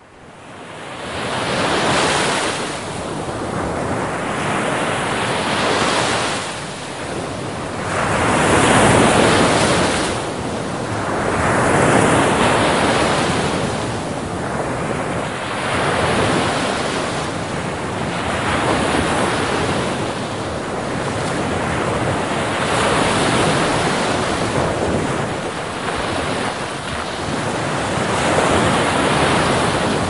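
Sea surf breaking on a shore, swelling and falling in surges a few seconds apart, with wind rumbling on the microphone.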